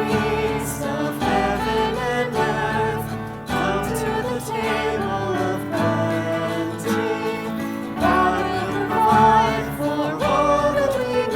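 A hymn or worship song with acoustic guitar strumming under a singing voice.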